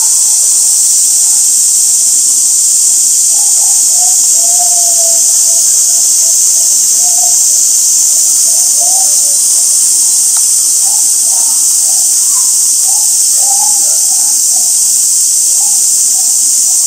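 Loud, steady chorus of cicadas: a continuous high-pitched buzzing hiss. Faint voices of people talking are heard underneath.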